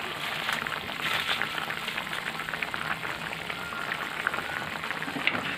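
Chopped chillies and shallots frying in oil in a wok: a steady bubbling hiss with many small crackling pops.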